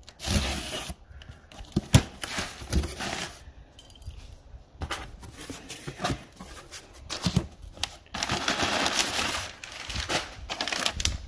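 Cardboard shipping box being opened by hand: packing tape ripped off, flaps pulled open and the contents rustled, heard as several spells of tearing and scraping with a few knocks between them.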